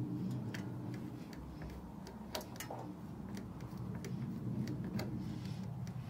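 Irregular light clicks and ticks of a chrome turn-signal trim ring being worked by hand onto its housing on a Harley-Davidson motorcycle, several a second at uneven spacing.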